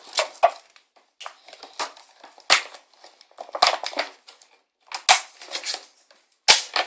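Plastic packaging crinkling and crackling as it is handled, in a string of short bursts about a second apart.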